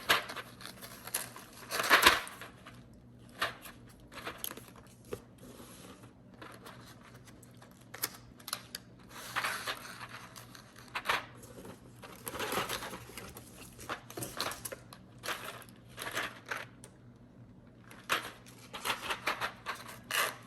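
Irregular clicks, taps and rustling from a mechanical keyboard and its packaging being handled, in scattered bursts with short pauses.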